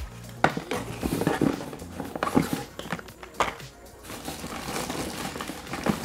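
Boxes and canisters of photographic film being rummaged through and handled inside a cardboard box: a string of irregular knocks, clicks and rattles, with a quieter stretch in the middle.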